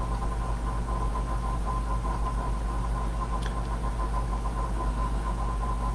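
Steady low background hum with a thin constant whine above it, unchanging throughout: room tone picked up by a webcam microphone.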